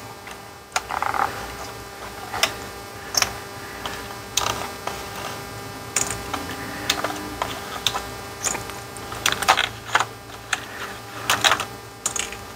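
Irregular small plastic clicks and taps as gauge needles on a 2007–2013 GM truck instrument cluster are twisted past their stops and pulled off their spindles, then laid on the metal workbench.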